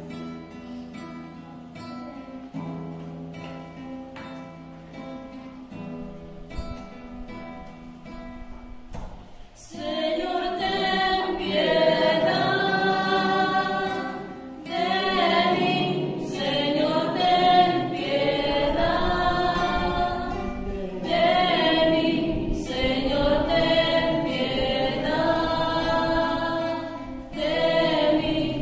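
Church choral music: a quiet instrumental introduction of held chords, then from about ten seconds in a group of voices sings the song.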